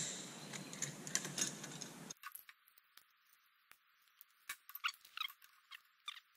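Faint, scattered clicks and a few small squeaks of a piece of aluminum angle being handled at a steel bench vise.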